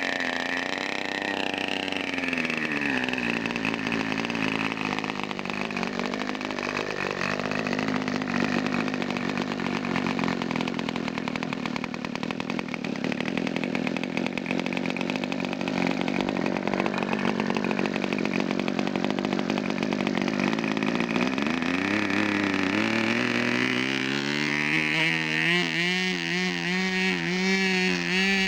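Small combustion engine of an RC model airplane running with a loud, buzzing note, its pitch dipping and rising again as the throttle is worked. In the last few seconds the note turns clearer and wavers up and down.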